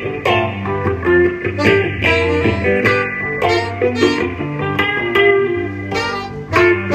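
A band playing an instrumental passage: guitar lines of short picked notes over bass and a steady drum beat.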